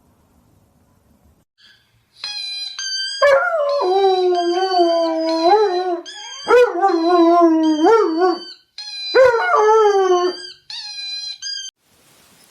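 A dog howling in three long, wavering howls, with a higher-pitched voice howling or whining alongside it in steady drawn-out notes.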